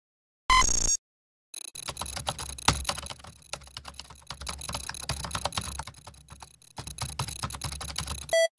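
A short electronic beep, then fast, clattering typing on a laptop keyboard for about seven seconds, ending with another brief tone.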